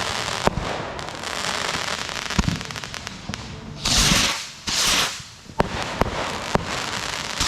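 Backyard consumer fireworks rockets going off: two loud hissing rushes about four and five seconds in, several sharp bangs, and crackling in between.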